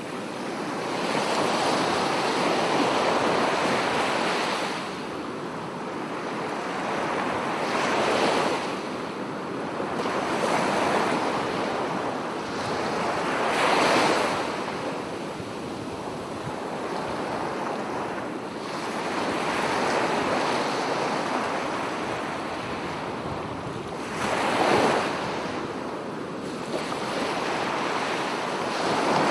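Ocean waves breaking and washing in, a continuous rush that swells and ebbs, with louder surges about 8, 14 and 25 seconds in.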